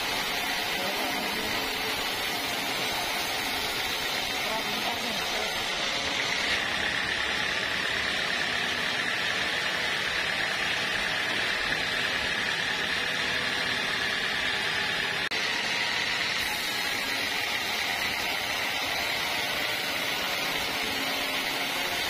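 Band sawmill blade ripping lengthwise through a waru gombong log, with a steady high whine over the machine's running noise. The whine grows stronger for several seconds in the middle of the cut.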